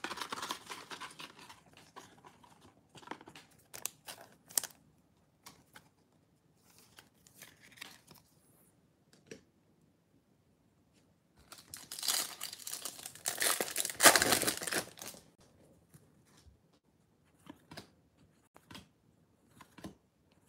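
Wrapper of a Bowman baseball card pack being torn open and crinkled, a loud noisy stretch of about three seconds past the middle, amid light clicks and rustles of cards being handled.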